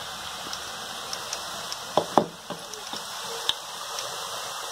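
Strands of omapodi (gram-flour sev) deep-frying in hot oil, a steady sizzling hiss with small pops. Two short, sharp sounds stand out about two seconds in.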